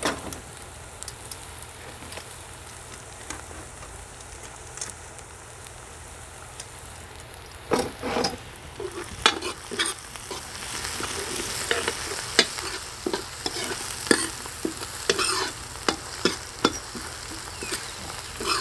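Chopped onion and green onion frying in oil in a kadai, a steady sizzle that grows louder about halfway through. A steel ladle stirs them, scraping and knocking against the pan repeatedly in the second half.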